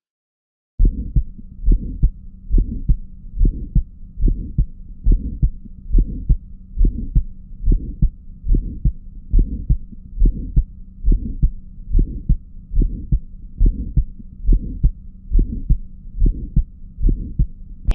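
Recorded heart sounds heard through a stethoscope: a regular heartbeat a little over one beat a second, starting about a second in, with a faint steady hum underneath. It is played as the example of a systolic ejection click, a click just after the first heart sound that points to stenosis of a semilunar valve, a bicuspid aortic valve or truncus.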